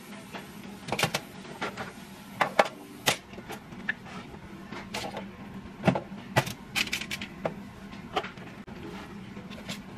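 Cut bell pepper and tomato pieces being picked out of a metal mesh strainer and set down on a foil-lined baking tray, giving irregular light taps, clinks and foil crinkles over a faint steady hum.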